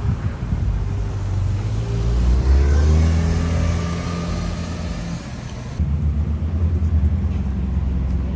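Porsche 911 Turbo's twin-turbo flat-six pulling away, its note rising about two to three seconds in. About six seconds in, the sound switches abruptly to a Bugatti Chiron's W16 engine running low and steady as the car creeps along.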